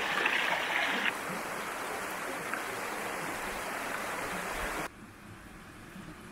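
Creek water rushing over rocks in a small cascade, a steady noisy rush. It eases about a second in and drops suddenly to a quieter flow about five seconds in.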